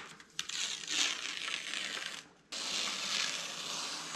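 Backing liner being peeled off a large piece of adhesive mounting tape, crackling, in two long pulls with a short pause between them.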